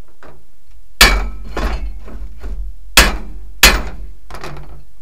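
A hammer striking a newly fitted U-joint in a driveshaft yoke, metal on metal: three sharp loud blows and two lighter taps, each ringing briefly. The taps free the joint so that it pivots smoothly.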